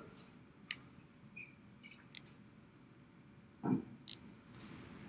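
Faint room sounds: a few scattered sharp clicks, a short dull thump about three and a half seconds in, and a brief soft hiss just after it.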